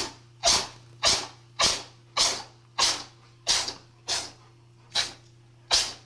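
A pet animal sneezing over and over in a rapid fit: about eleven short, sharp sneezes evenly spaced, a little under two a second.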